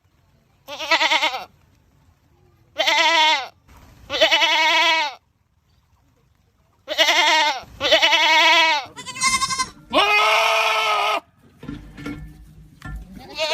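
Goats screaming: about seven loud, wavering bleats in quick succession, each dropping in pitch at its end, with quieter calls near the end.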